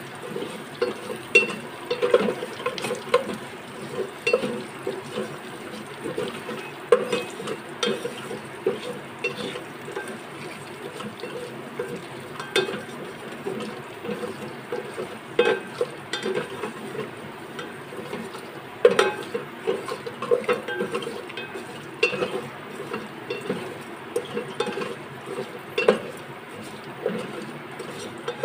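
Wooden spatula stirring and scraping frying okra, onion and cumin seeds in the aluminium pot of an electric rice cooker, with irregular knocks against the pot over a soft steady sizzle.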